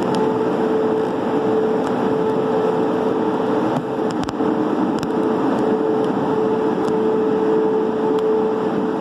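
Christ Genius rollover car wash gantry running its rotating side brushes over a car, with water spraying: a steady motor hum with one constant tone over the continuous swish of brushes and water.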